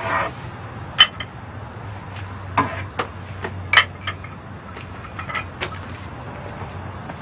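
Scattered light clinks and knocks, a handful of separate sharp ticks with the sharpest about a second in and near the middle, over a steady low hum.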